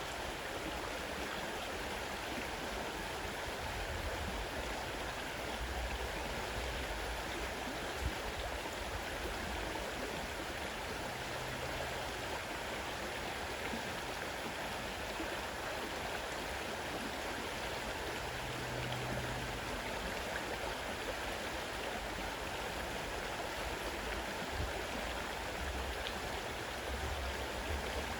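Fast-running river water rushing steadily, an even wash of noise with no break.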